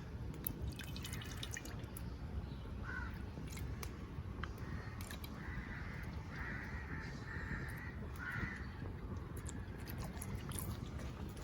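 Crows cawing several times, in a run of short calls from a few seconds in, over a steady low background noise with scattered faint clicks.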